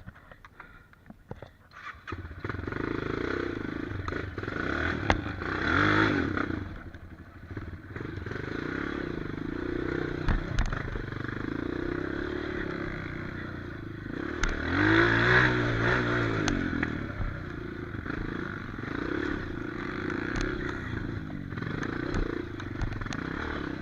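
Trail motorcycle engine running, coming in about two seconds in and then held mostly steady, revved up and back down twice, around six seconds in and again near the middle, with scattered clicks and clatter.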